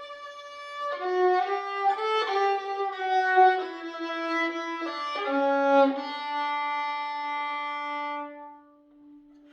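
Solo violin, played by a self-taught amateur, bowing a slow melody note by note. It ends on a long held low note that fades away about eight seconds in.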